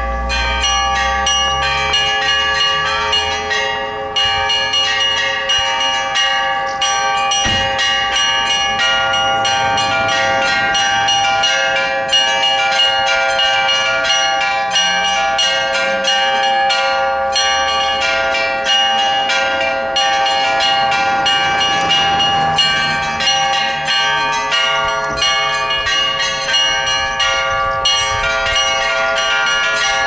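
Orthodox church bells ringing a continuous peal (zvon): a rapid, unbroken run of strikes on small bells over the steady hum of larger bells.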